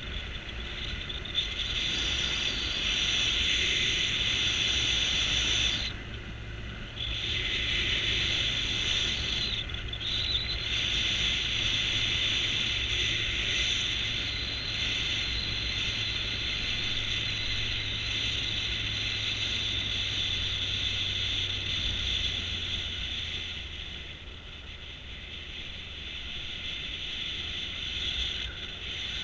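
Motorcycle riding along a mountain road, heard from a camera mounted on the bike: a steady low engine hum under a loud high-pitched hiss, which drops away briefly about six and ten seconds in.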